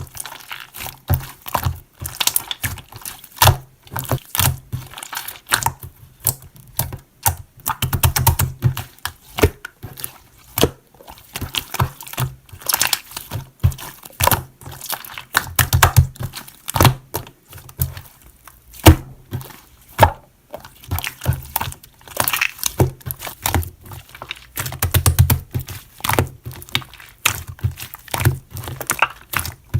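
A dense, irregular run of sharp clicks, taps and crinkly crackles, like small objects being handled. A few heavier low thuds come about a third, half and five-sixths of the way through.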